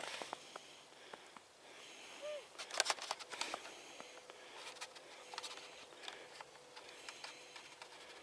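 Footsteps through dry leaf litter and brush, with twigs crackling and branches brushing past. The loudest burst of crunching comes about three seconds in.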